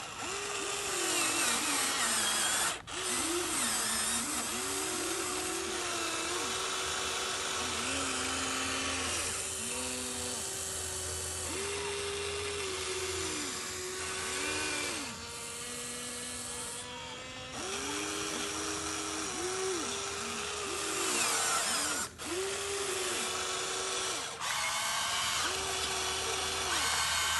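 Electric motors of a radio-controlled model excavator whining in short runs that start and stop every second or so, the pitch rising and falling as the controls are worked while it digs.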